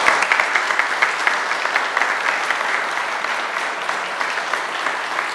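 Audience applauding: many hands clapping together, slowly getting softer toward the end.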